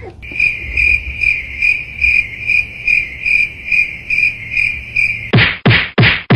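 Cricket chirping in an even, pulsing rhythm, about two and a half chirps a second. Near the end it gives way to a quick run of four or five sharp whacks.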